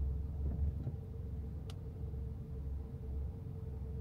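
Steady low rumble of a car's cabin, with a faint even hum over it and one light click about a second and a half in.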